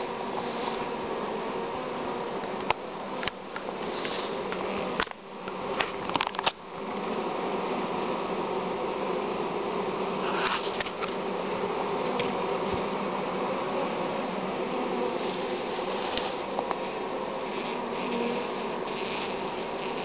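Honeybee colony humming steadily in an open hive. A few sharp knocks and clicks come between about three and seven seconds in.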